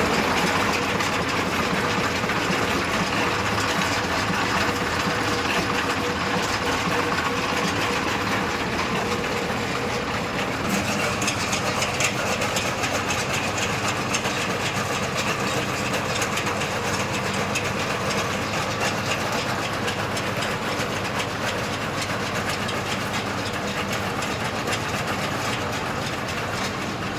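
Tractor-driven baler running steadily: an engine drone with a constant mechanical clatter from the baling machinery.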